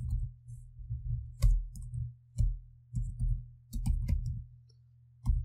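Computer keyboard being typed on: irregular key clicks and thuds at an uneven pace, over a steady low hum.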